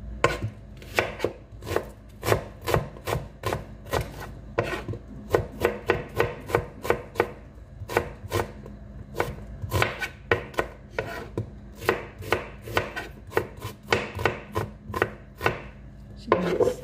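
Kitchen knife chopping red onion on a cutting board: repeated sharp knife strikes on the board, about two to three a second, with a few short pauses.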